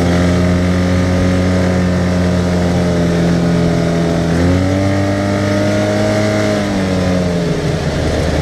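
Arctic Cat side-by-side UTV's engine running under way over a steady rushing noise; its pitch rises about halfway through, holds for a couple of seconds, then drops back near the end.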